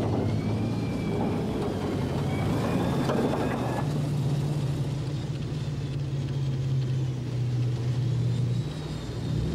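Tracked armoured vehicles driving past with a steady engine drone, and metallic track clatter and rattling during the first four seconds.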